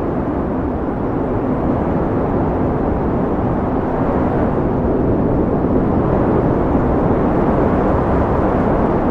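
Wind blowing steadily: a deep, even rush with no gusts or breaks.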